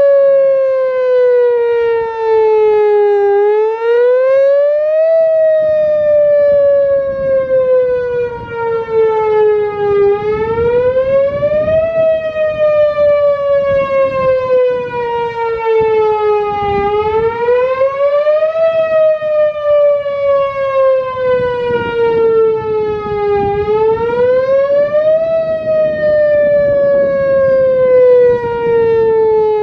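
Whelen Vortex outdoor warning siren sounding the wail signal during a test. Its pitch climbs quickly and then falls slowly, repeating about every six to seven seconds.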